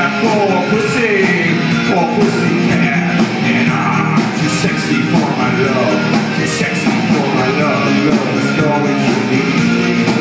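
A live rock band playing a song: electric bass, electric guitar and drum kit, with a singer's voice over them through a microphone.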